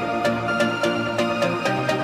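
Electronic background music with a steady, fast beat and sustained synth notes.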